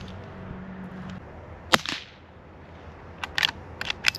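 A Henry Golden Boy .22 LR lever-action rifle firing a CCI Quiet low-velocity round: a single sharp crack about two seconds in. Near the end comes a quick run of sharp metallic clicks as the lever is worked.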